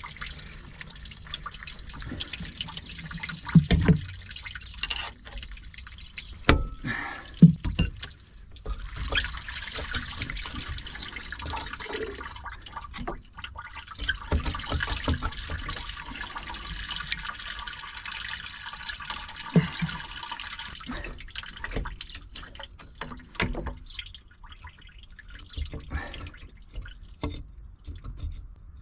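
Water draining out of the OMC 140 engine's cooling passages at the water pump as it comes off: dripping and splashing, with a steadier running stream from about nine seconds in to about twenty-one seconds. A few sharp knocks in the first eight seconds.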